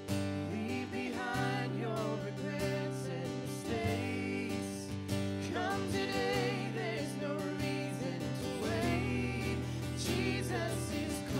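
Worship band playing a slow congregational song: guitar and sustained low notes under a sung melody in several phrases.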